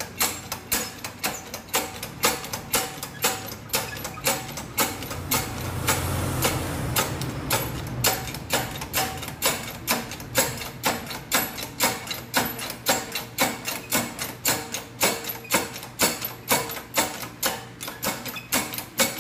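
Hydraulic shop press working, a steady rapid clicking of about three clicks a second, as it pushes a rear axle shaft down out of its wheel bearing. A low rushing noise swells under the clicks in the middle.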